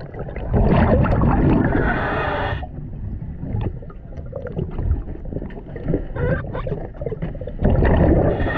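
Scuba diver breathing through a regulator underwater: two long bursts of exhaled bubbles gurgling out about seven seconds apart, with quieter water noise between.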